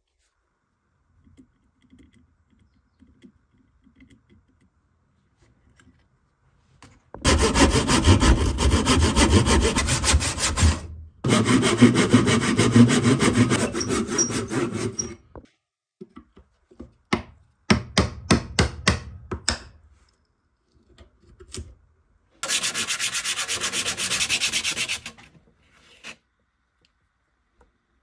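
Faint pencil scratches on wood at first, then a Bahco handsaw cutting a small block of wood held in a vice: two long runs of rapid saw strokes, then a string of separate strokes. Near the end comes a short loud stretch of wood rubbing, likely sanding on sandpaper.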